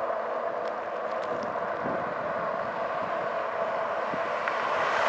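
A steady hum and rush of riding along an asphalt road on a bike. Near the end an oncoming pickup truck swells louder as it approaches.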